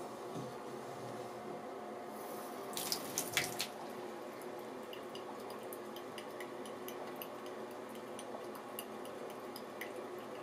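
A cat lapping water at a bathtub spout: small wet ticks from its tongue over a steady trickle of water, with a short cluster of louder clicks about three seconds in.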